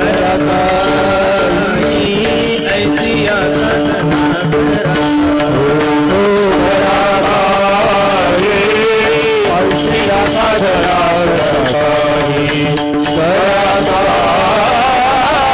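Marathi kirtan singing: a male voice sings a devotional line in long, held, ornamented notes that glide up and down, over a steady held accompanying note, with quick drum and small cymbal beats.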